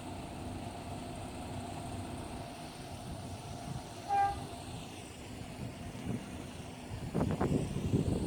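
A single short horn toot about four seconds in, heard from a distance over a steady low background rumble. Louder irregular buffeting noise on the microphone starts near the end.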